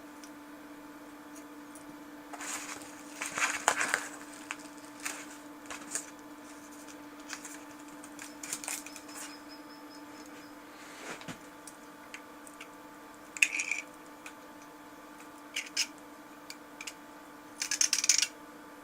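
Small hard objects handled on a surface: scattered clicks, taps and brief scraping rustles over a faint steady hum, loudest about three seconds in, a little past halfway, and near the end.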